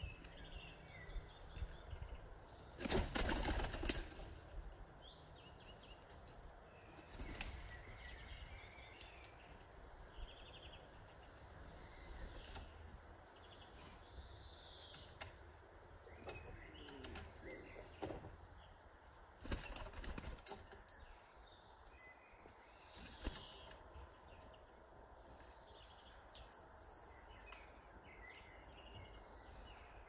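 Wings of a pigeon flapping hard in a take-off about three seconds in, with shorter bursts of wing flutter several more times, while small birds chirp on and off throughout.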